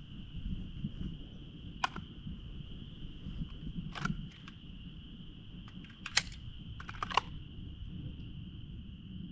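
Four gunshots at uneven spacing, each a sharp crack with a short metallic ring, over the steady high drone of insects.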